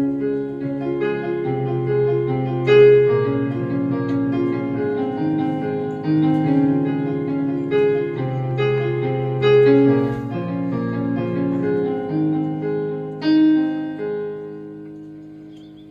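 Piano music: a slow melody of struck notes over held bass notes, ending on a chord that rings and fades away.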